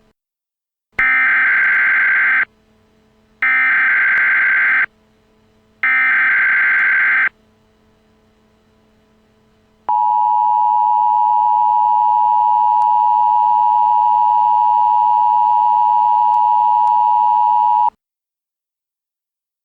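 Emergency Alert System header: three short bursts of digital data tones, each about a second and a half long, then after a pause the steady two-tone attention signal held for about eight seconds before it cuts off abruptly.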